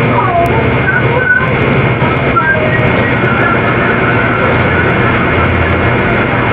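Heavily amplified, noisy recording: a loud, steady hiss with a low hum under it, and faint, indistinct wavering voice-like sounds drifting through.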